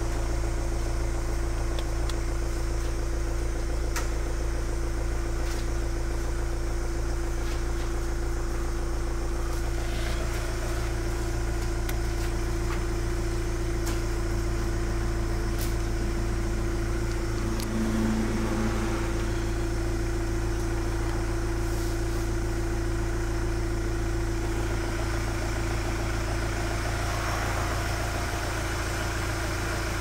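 Kia Venga's engine idling steadily, heard from inside the cabin as a low, even hum, with a few faint clicks.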